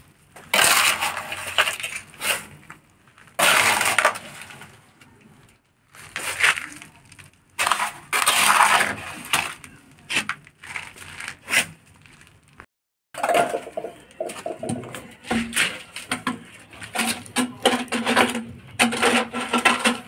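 Gritty scraping and crunching of mortar rubble and broken brick being dug out and shifted by hand, in bursts of one to two seconds. A dense run of short knocks and clatters follows over the last several seconds.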